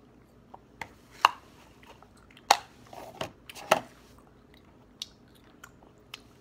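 A child chewing Bubble Tape bubble gum with open-mouthed smacks and clicks: a handful of sharp smacks in the first few seconds, the loudest about a second in, then only a few faint ones.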